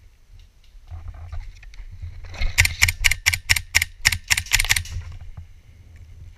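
An airsoft rifle fires a quick string of about a dozen shots, roughly five a second, lasting about two and a half seconds. The sound is muffled by a closed waterproof camera housing.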